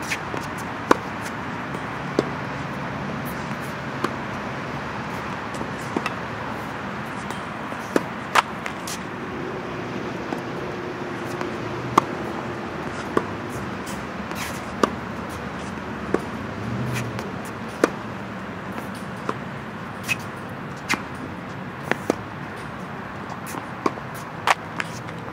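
Tennis ball struck by a racquet on forehand after forehand, a sharp pop every second or two, some followed closely by a softer ball bounce on the hard court, over a steady background hum.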